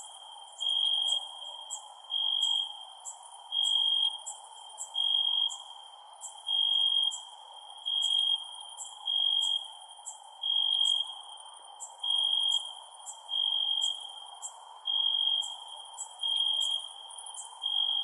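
Crickets chirping at night: one steady-pitched chirp of about half a second, repeating about every second and a half, with quicker, higher-pitched chirping above it over a steady background hiss.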